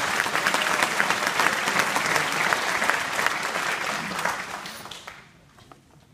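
Audience clapping, dense and steady for about four seconds, then dying away about five seconds in.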